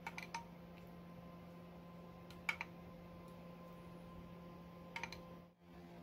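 Faint steady hum with a few soft, light clicks: a small cluster at the start, the loudest pair about halfway through, and another pair near the end, followed by a brief dropout in the sound.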